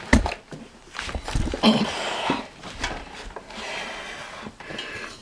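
A plastic jar set down on a tabletop with a knock right at the start, then soft handling noises and a nasal breath about two seconds in.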